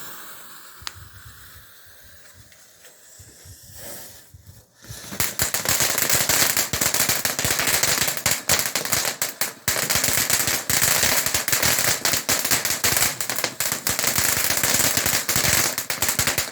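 Night Tide fountain firework from a Standard Fireworks selection box: a quieter hiss as it gets going, then from about five seconds in a dense, fast crackling that keeps up without a break.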